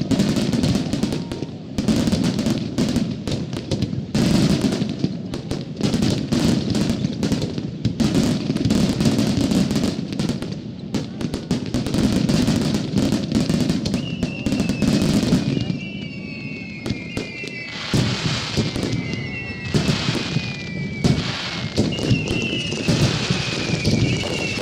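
Starmine fireworks barrage: dense, rapid bursts and crackling shells going off one after another. About halfway in, a series of high whistles that slide slowly downward in pitch joins the bursts, repeating every second or two.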